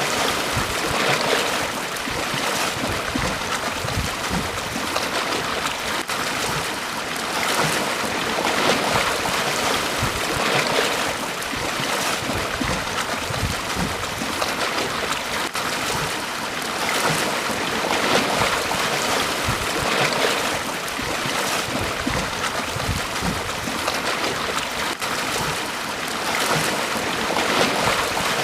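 Sea waves breaking and washing up a beach: a continuous hiss of surf that swells with a new surge every few seconds.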